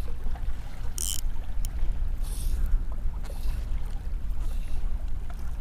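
Wind rumbling low on the microphone over choppy water lapping against a kayak hull, with a short hiss about a second in.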